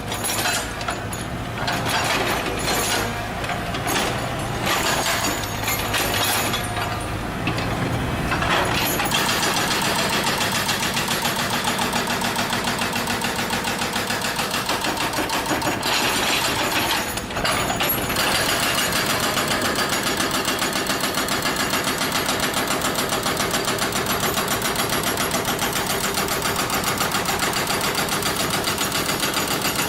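Excavator-mounted hydraulic breaker hammering a road surface, with the machine's engine running underneath. The blows come unevenly at first, then settle into a fast, even rhythm about nine seconds in.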